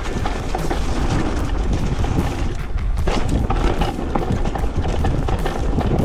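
Focus Sam² 6.8 e-mountain bike riding fast down a rough trail: tyres rumbling over dirt and leaves, with the bike rattling and clattering at every bump and wind buffeting the camera's microphone.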